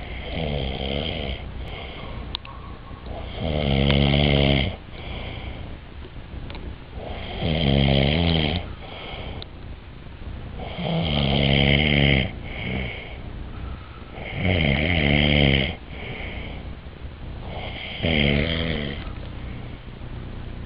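A sleeping person snoring loudly: a long, low-pitched snore on each breath, about every three and a half seconds, with a softer breath sound in between. Six snores in all; the first is quieter than the rest.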